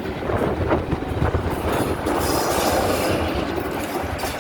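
A steam-hauled train pulling out of a station, its coaches rolling along the track with a steady run of wheel and rail noise and low knocks, and a brighter, hissier stretch about halfway through.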